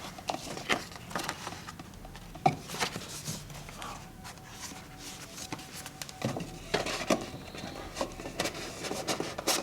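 Handling noise: scattered light clicks and knocks of items being handled and set down on a work surface.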